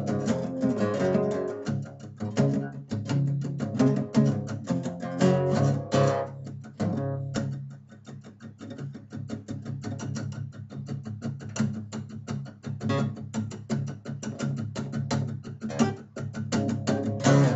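Acoustic guitar strummed fast and rhythmically, played hard for the first several seconds, then more lightly, then building again before stopping short at the end.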